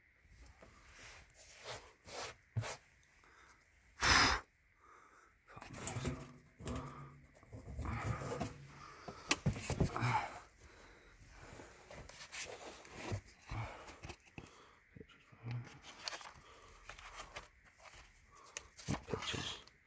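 Hands rummaging through old books and junk: scattered rustles, knocks and handling noises. There is a short, loud burst about four seconds in.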